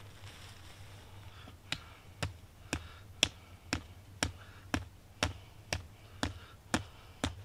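A tent stake being hammered into the ground at the tent's corner: about a dozen sharp, even strikes, two a second, starting a little under two seconds in.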